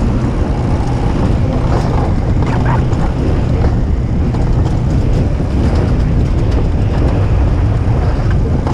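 Alpine coaster sled running down its tubular steel rail: a loud, steady rumble of the wheels on the track, mixed with wind on the microphone.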